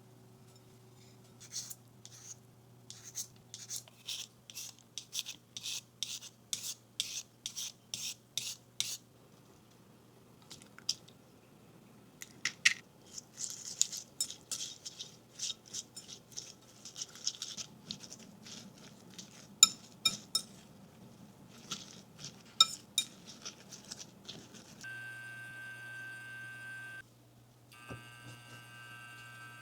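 Kitchen utensils working against dishes: a regular run of sharp strokes, about two a second, then irregular clinks and scrapes. Near the end a steady hum with a high tone sets in.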